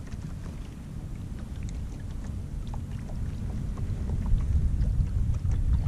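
Wind buffeting the microphone: a low, uneven rumble that grows louder over the last couple of seconds, with faint scattered ticks above it.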